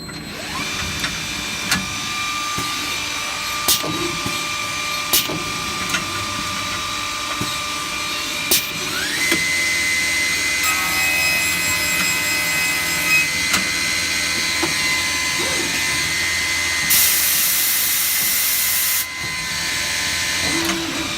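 Skipper V31 five-sided CNC boring machine running a drilling cycle on a small wooden part. Its spindle motors whine steadily, stepping up in pitch about halfway through, with several sharp knocks and a loud hiss lasting about two seconds near the end.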